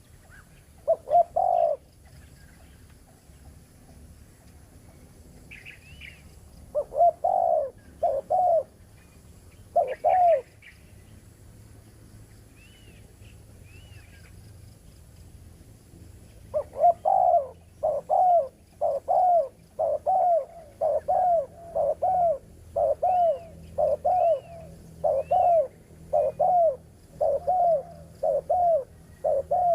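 Spotted dove cooing: a few short phrases of low, arched coo notes, then a long unbroken run of repeated coos through the second half. Faint high chirps of another small bird come in now and then.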